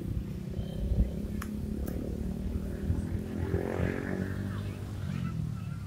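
Busy outdoor ambience: a low rumble with distant voices and passing vehicles.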